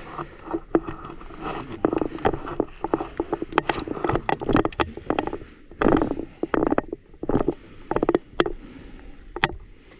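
Irregular rustling with scattered sharp knocks and clicks close to the microphone, with no steady sound underneath.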